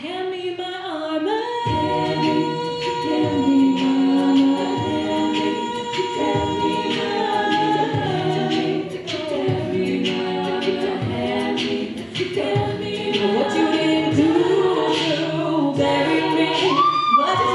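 Women's a cappella group singing into microphones: stacked voices hold chords over a steady beat, with a long held note coming in about a second in and a solo voice sliding up high near the end.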